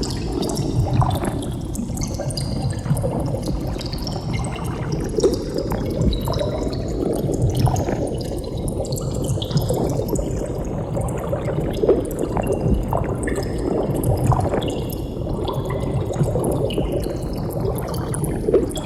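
Underwater bubbling: a continuous stream of bubbles gurgling, with many small pops scattered through it.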